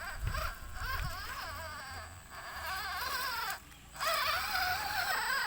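Small electric motor of a toy off-road RC car whining, its pitch wavering up and down with the throttle, dropping out briefly a little after halfway.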